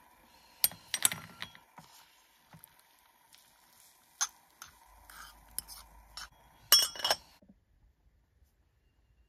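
Small metal spoon clinking and scraping against a miniature aluminium pot while fluffing cooked rice: scattered light clinks, with a louder cluster of clinks about seven seconds in.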